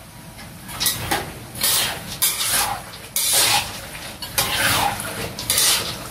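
A metal ladle scraping and tossing raw peanuts around a large metal wok, with the nuts rattling against the pan. There are about six separate strokes, starting about a second in, each scrape falling in pitch.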